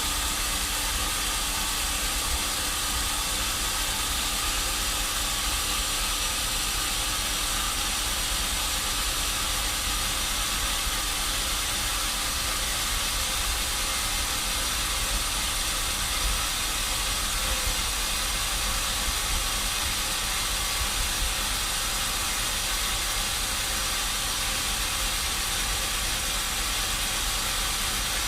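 Sawmill machinery running steadily: a constant hiss with a low rumble and a few faint steady tones underneath, unchanging throughout.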